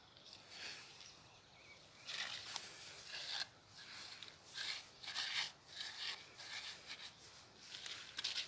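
Faint, irregular scuffing and rustling of flip-flop footsteps on damp soil and dry twigs, starting about two seconds in.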